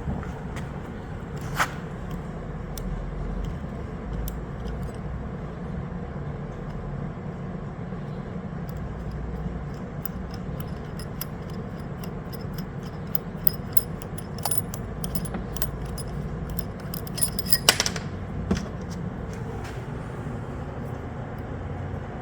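Small metallic clicks, taps and scrapes of a hex Allen key and metal parts being worked inside a hydraulic cable cutter head while the shear pin is unscrewed. A quick run of light ticks builds up in the second half and ends in a few louder knocks, over a steady low background hum.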